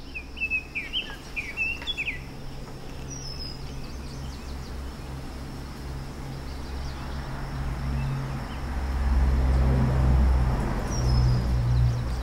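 A small bird chirps a few times in the first two seconds. A steady low droning hum grows louder through the second half and peaks near the end.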